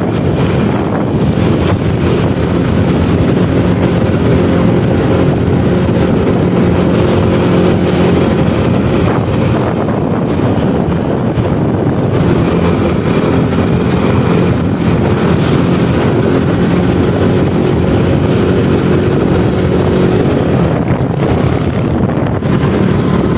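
Motorcycle engine running steadily at cruising speed, with heavy wind noise buffeting the microphone.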